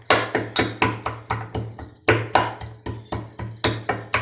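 Ginger, black pepper, cloves and cinnamon being pounded finely with a mortar and pestle: quick, even pestle strikes, about four a second.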